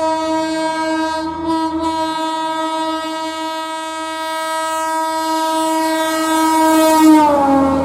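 WAP4 electric locomotive's horn held in one long continuous blast, sounded as a warning to track maintenance workers ahead. It gets louder as the train closes in, then drops in pitch near the end as the locomotive passes.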